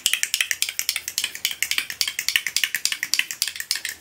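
A glass nail polish bottle rolled briskly back and forth between the palms to blend thinner into old, thickened polish, giving a fast, continuous run of light clicks and rattles.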